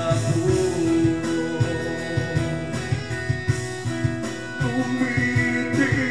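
Karaoke: a man singing into a microphone over a guitar-led pop-rock backing track, stopping for an instrumental passage in the middle and coming back in near the end.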